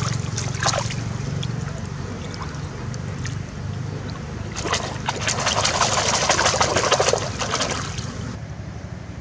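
Catfish thrashing in a wire-mesh fish basket sitting in shallow river water. There are two short splashes in the first second, then a long spell of rapid splashing from about four and a half to eight seconds in, over a steady low hum.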